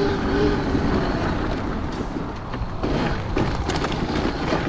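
Riding noise from an electric-converted Kawasaki KX 85 dirt bike: wind buffeting and knobby tyres rolling over dirt, with no engine sound. A faint motor whine fades out near the start, and a few sharp clicks and rattles come through about halfway in.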